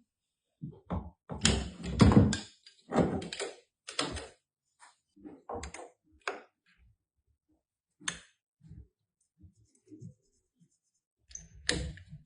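Irregular knocks, clunks and clicks of copper pipe and hand tools being handled. They are loudest and most frequent a second or two in, then thin out to scattered lighter taps, with another louder knock near the end.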